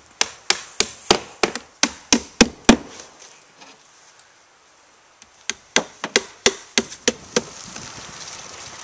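A hammer driving nails through cedar roof shakes: two quick runs of sharp blows on wood, about three a second, with a pause of a couple of seconds between them.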